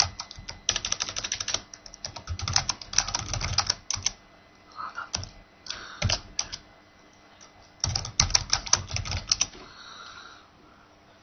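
Computer keyboard being typed on in quick runs of keystrokes, four or five bursts with short pauses between them, going quiet near the end.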